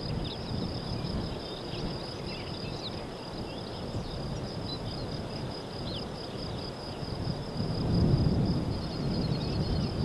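Wind buffeting the microphone in uneven gusts, strongest about eight seconds in, over a steady high-pitched chirring and scattered faint chirps from insects and birds in a meadow.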